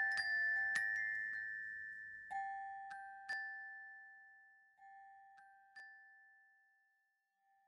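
Sparse closing music of single ringing, bell-like notes, each struck and left to die away slowly, the notes spacing out and the whole fading away over several seconds.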